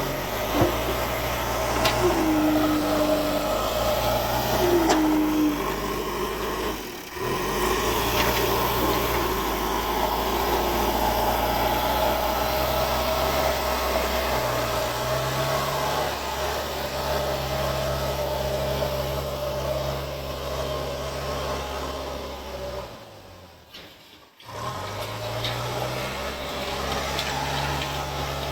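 JCB 3DX backhoe loader's diesel engine running under work, its pitch stepping up and down as the load changes. The sound drops out briefly twice.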